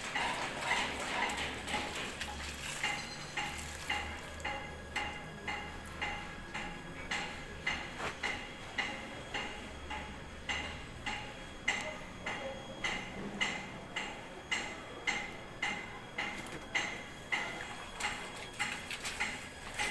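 Rhythmic mechanical clicking from a Samsung Ecobubble washing machine, about one and a half to two clicks a second, steady and even.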